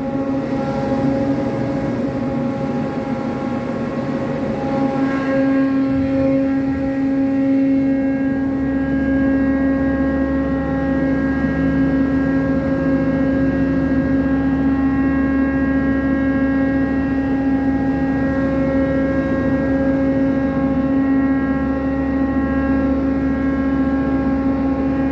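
Cargo crane machinery running with a steady hum of several fixed tones while its grab bucket works in a hold of wheat; a deeper hum joins about eight seconds in and holds.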